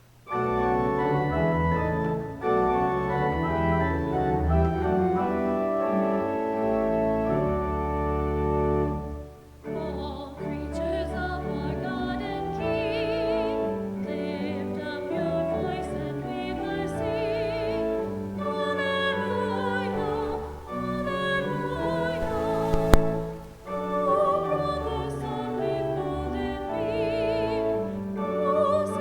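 Organ chords open the piece, and from about ten seconds in a solo singer with wide vibrato sings a sacred piece over the organ. A single sharp click sounds about two thirds of the way through.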